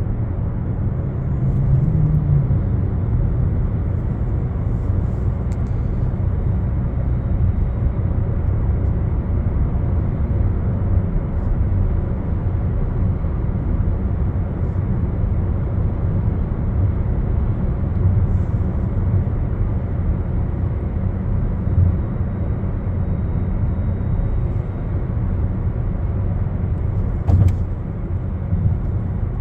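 Steady low rumble of a moving road vehicle, with one brief knock near the end.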